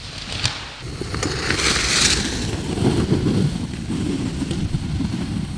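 Mountain bike tyres (a Santa Cruz Tallboy) rolling and crunching over dry fallen leaves on a forest trail, with a crackle of leaves loudest about two seconds in and a rumble that swells as the bike passes close by.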